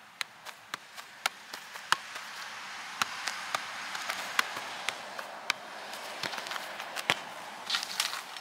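Soccer ball being juggled: a run of irregular taps as foot, thigh and chest strike the ball, several a second at times, with a quick cluster of knocks near the end, over a steady background hiss.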